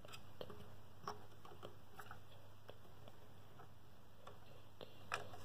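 Faint, irregularly spaced light clicks and taps of plastic Lego pieces being handled, over a low steady hum.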